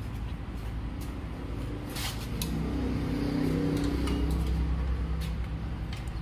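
A few sharp metallic clicks of a spanner working on the fuel-line fittings of a diesel tractor engine, over a steady low hum.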